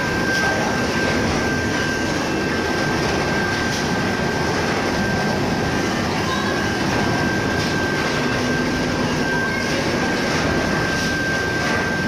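Seafood washing and blanching machine running: steady mechanical noise with a constant thin high whine over it.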